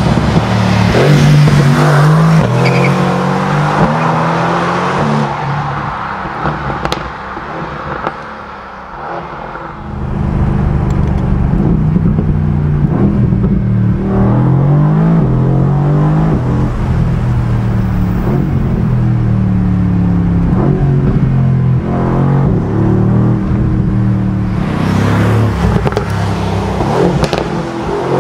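2019 Mercedes-AMG GT R's 4.0-litre twin-turbo V8 accelerating hard through the gears, its pitch climbing and dropping at each upshift. It fades as the car drives away, cuts back in loud at about ten seconds, heard from inside the cabin, and ends with the car passing close by near the end.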